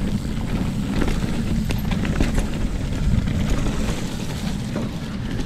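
Wind buffeting the microphone and tyres rumbling over a dirt trail as a mountain bike descends at speed, with a few short clicks and rattles from the bike.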